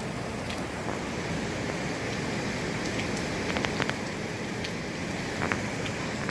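Hurricane wind and heavy rain: a steady rushing hiss with a few sharp ticks of drops striking, several of them about halfway through.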